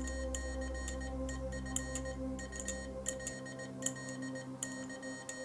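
Morse code tones beeping in short and long elements, dots and dashes, over a steady ambient synth drone. The deepest bass of the drone drops out about three seconds in.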